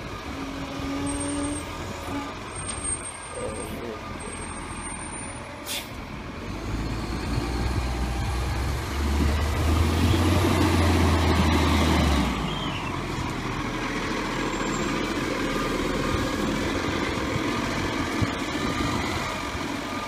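Diesel engine of an Iveco side-loader garbage truck running as it drives and manoeuvres, building up about halfway through and then easing back to a steady run. A short sharp hiss of the air brakes comes about six seconds in.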